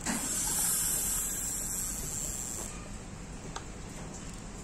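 A steady high hiss that lasts about two and a half seconds and then dies away, with a faint click or two after it.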